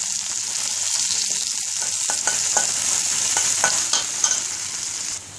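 Curry leaves, ginger and garlic sizzling in hot coconut oil in a metal kadai, stirred with a steel spoon that clicks and scrapes against the pan from about two seconds in. The sizzle drops away suddenly near the end.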